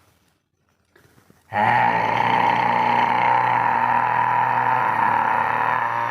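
Lion-pose (simhasana) roar: one long, forced 'haaa' breathed out from the throat with the tongue stuck out. It starts suddenly about a second and a half in and is held for about five seconds.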